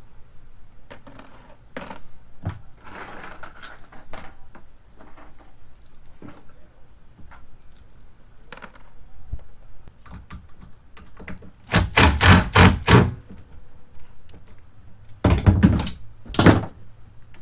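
Metal hand tools clicking and clinking while working a stuck thigh-brace screw on a kayak, with a quick run of about six loud knocks about twelve seconds in and three more about fifteen seconds in.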